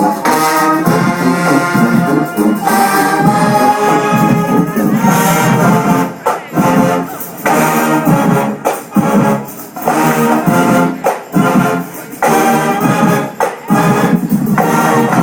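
Marching band's brass section, trumpets and trombones, playing loud held chords over drums, in phrases with short breaks between them.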